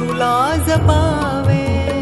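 Instrumental interlude of a slow Marathi film song: a bansuri-style flute carries a gliding, ornamented melody over a low bass line.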